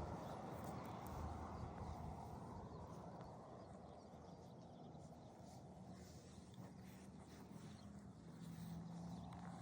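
Quiet outdoor ambience with faint sounds of a horse standing close by, and a faint steady low hum underneath.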